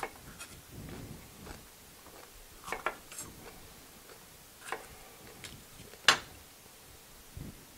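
Chef's knife cutting a green bell pepper on a cutting board: a handful of separate sharp knocks as the blade goes through the pepper and meets the board, the loudest about six seconds in.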